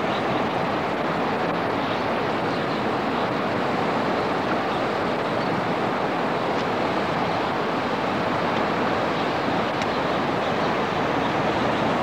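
Steady, unbroken rushing noise outdoors, like running water or wind over the microphone, holding one level throughout.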